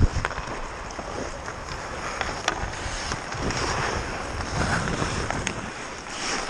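Hockey skates scraping and gliding on rink ice, with wind rushing over a helmet-mounted camera's microphone. A few sharp clacks of sticks and puck cut through it.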